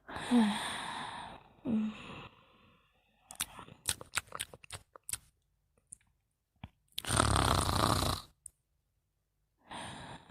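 A sleeper snoring: rasping breaths, the loudest and deepest about seven seconds in, with a run of small clicks in the middle.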